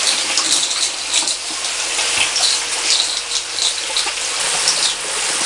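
Water running steadily through a sluice box, with irregular splashes as a hand scoops wet sand from a bucket of water.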